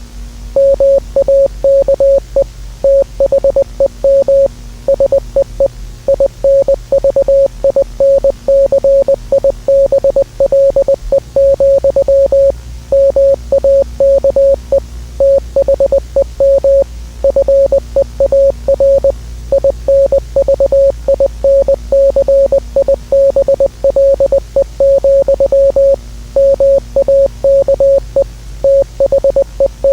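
A single steady-pitched electronic beep keyed on and off in irregular short and long pulses, in the manner of Morse code sent by radio tone. Under it run a steady low hum and faint static.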